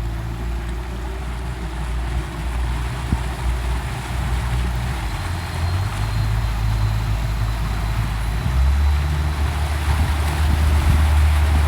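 Motorboat engine running with water and wind noise, its low hum stepping up louder about two thirds of the way through.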